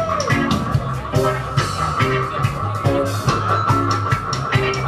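A live band playing with electric guitars and a drum kit, the drums keeping a steady beat under a sustained guitar tone, heard from within the crowd.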